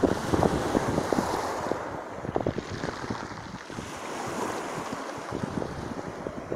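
Small sea waves breaking and washing over a pebble beach, the hiss of the surf swelling and ebbing twice. Wind buffets the microphone throughout.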